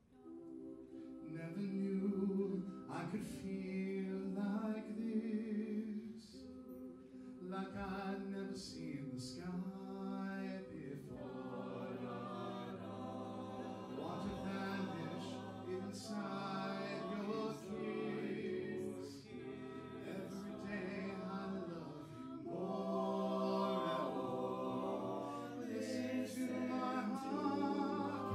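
Small mixed group of male and female voices singing a cappella in harmony, with held low bass notes under the upper parts; the singing starts again after a brief pause.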